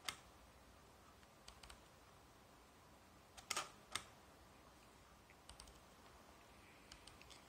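DSLR shutter firing on a 0.4-second exposure: a shutter click right at the start, then about three and a half seconds in a pair of clicks a little under half a second apart as the shutter opens and closes. Fainter small clicks from handling the camera fall in between.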